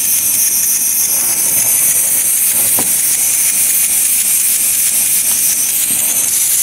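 Stuart S50 model horizontal mill engine running on about 4 PSI, heard as a steady hiss with no clear beat, and a faint click about three seconds in.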